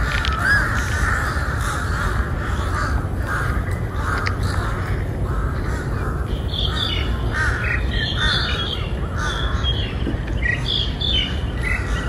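A flock of crows cawing again and again, several birds calling over one another, with more calls overlapping in the second half.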